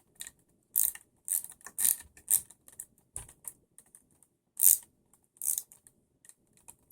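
Irregular clicks and rattles of small plastic and metal parts as a wheel is fitted back onto an RC buggy, with a few louder clacks scattered through.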